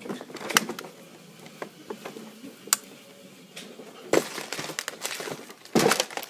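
Sheet of paper being handled and creased on a table: scattered sharp taps and short rustles, the loudest about four and six seconds in.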